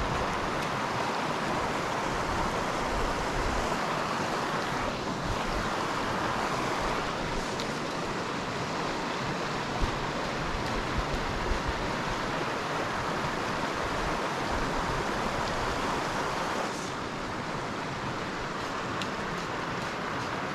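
Steady rush of the Jemez River running high with spring snowmelt, with wind buffeting the microphone in low gusts. A few light clicks come near the middle, and the rush drops slightly about three-quarters of the way through.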